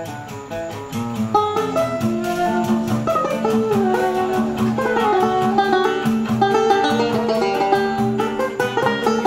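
A small acoustic choro ensemble playing live: a banjo strumming chords and an acoustic guitar, with a woodwind carrying a sustained melody over them. The music grows fuller about a second in.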